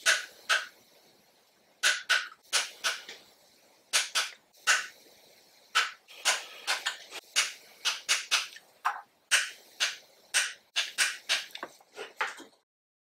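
A ratchet wrench clicking in short runs of quick, sharp clicks, about four a second, with brief pauses between runs, as the lower intake manifold bolts are tightened down to torque.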